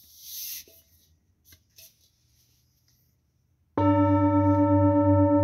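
Large hand-beaten singing bowl, resting on an open palm, struck once with a mallet about three and a half seconds in and ringing with a deep tone and several higher overtones that wobble in an even pulse. Before the strike, only faint handling rustles and light clicks.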